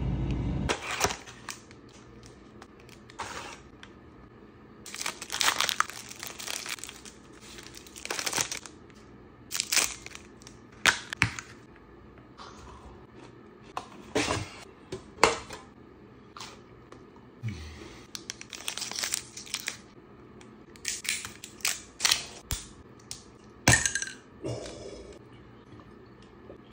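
Snack packaging crinkling and being torn open, in a series of short bursts.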